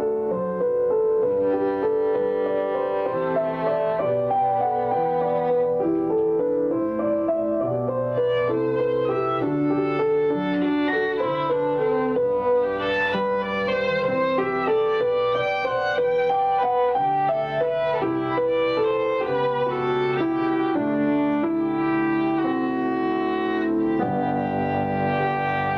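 Instrumental background music: a melody of held notes over chords.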